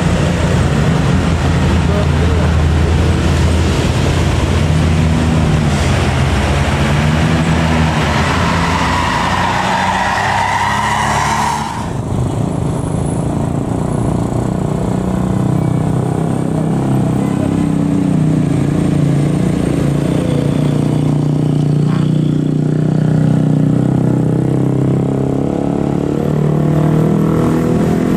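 Bus diesel engines running and revving up and down, with people's voices mixed in. The sound changes abruptly about twelve seconds in.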